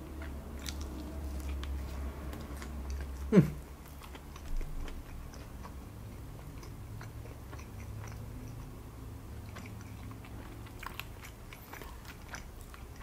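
Close-miked chewing of a mouthful of chili-cheese-covered spicy fried chicken sandwich: soft wet mouth sounds with many small clicks. About three and a half seconds in there is a short mouth sound that drops in pitch, the loudest moment.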